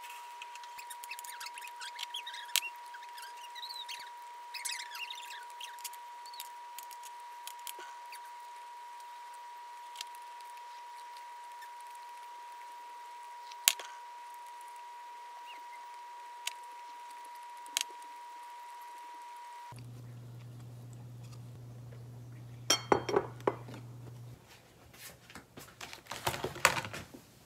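Light clicks and taps of tableware at a small meal, over a steady high-pitched whine, with one sharp click about halfway through. About twenty seconds in, the whine stops and a low hum takes over, with two brief bursts of rustling and handling noise.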